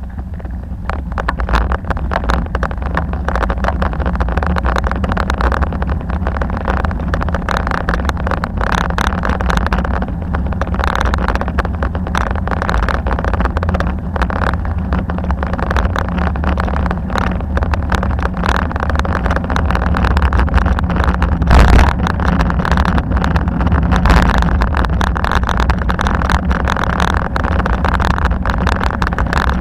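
Wind rushing over the microphone of a bicycle-mounted action camera, with steady road rumble and frequent small knocks from bumps in the surface. A louder jolt comes about three-quarters of the way through.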